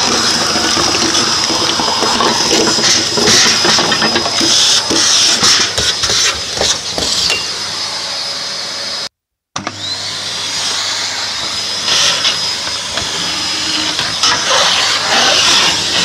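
Kärcher T10/1 Professional vacuum cleaner running with a steady high whine while its nozzle sucks up ash and grit from a wood-burning stove, with many small clicks and crackles of debris rattling through the hose. The sound cuts out completely for a moment a little past nine seconds.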